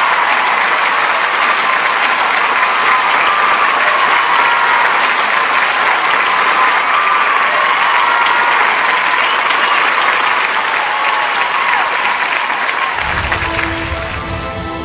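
Large audience applauding steadily; near the end the clapping fades as music with a bass beat comes in.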